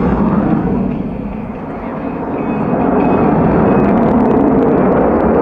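Jet noise from a US Navy F/A-18F Super Hornet's twin turbofans during an air show demo pass. The noise eases about a second in, then swells back to full strength.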